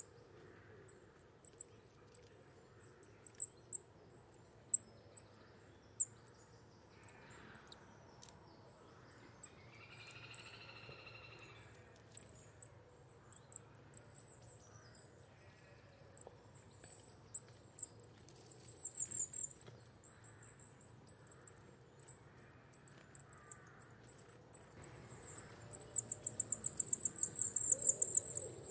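Coal tit calling: many short, very high, thin notes given singly and in little runs, with a fast, dense series near the end.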